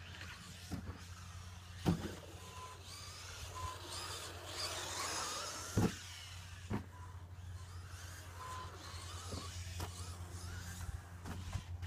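Team Associated B5M electric 2WD RC buggy driving the track, its motor whine rising and falling with the throttle. Sharp knocks of the car hitting the track cut in, the loudest about two and six seconds in.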